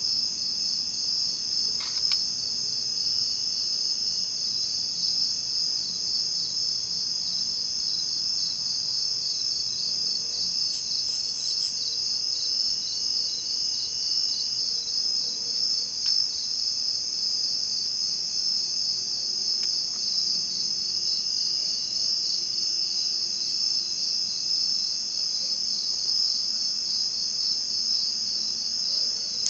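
A chorus of night insects: a steady, high-pitched, rapidly pulsing trill, with a fainter, lower steady trill that comes and goes.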